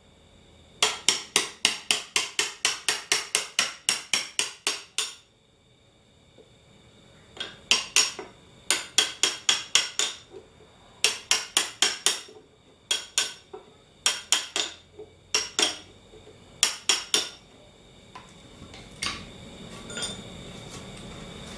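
Rapid metal-on-metal strikes in several runs of about five a second, each strike ringing briefly. The longest run comes near the start, and the last few strikes near the end are fainter.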